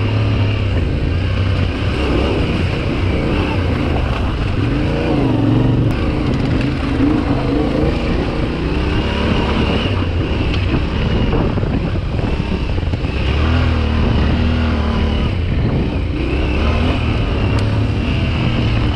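Yamaha Ténéré 700 motorcycle's parallel-twin engine being ridden hard off-road, its pitch rising and falling continuously with throttle and gear changes.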